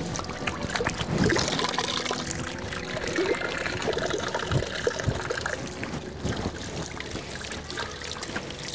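Water trickling from a bamboo pipe spout and splashing as hands are rinsed under the stream.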